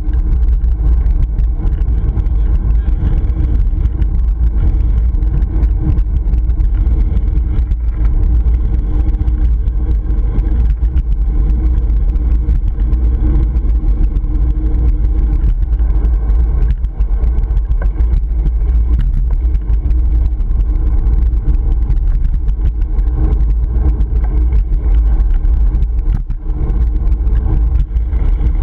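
Wind buffeting the GoPro Hero 3's microphone while cycling, a loud steady low rumble that flutters throughout.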